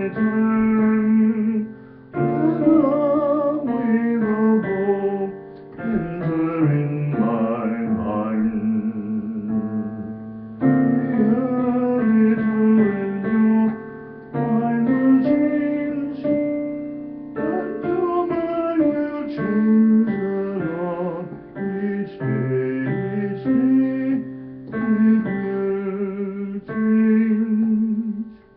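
Slow piano playing on a digital piano: sustained chords in phrases of two to four seconds, each dying away before the next is struck.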